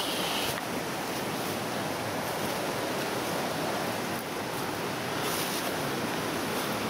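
Steady outdoor rushing noise, with short rustles of dry brush at the start and again about five seconds in.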